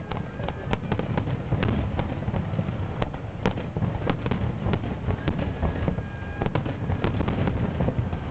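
Aerial firework shells bursting in quick succession: a dense run of sharp cracks and bangs over a constant low background noise.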